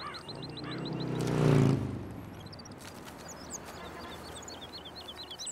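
A motor vehicle's engine passes, rising in pitch and loudness to a peak about a second and a half in, then dropping away quickly, while small birds chirp over and over.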